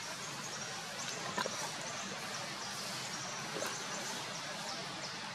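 Forest ambience: a steady hiss with short, high chirping calls repeating throughout, and a couple of light clicks, one about a second and a half in and another near the two-thirds mark.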